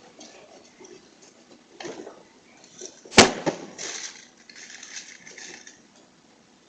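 A single sharp clack about three seconds in, the loudest thing here, among scattered short scuffs and rustles.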